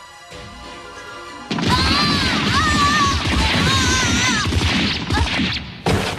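Loud action sound effects over the score: a crashing blast with a wavering shriek through it starts about a second and a half in and lasts about four seconds, then a short sharp crash near the end.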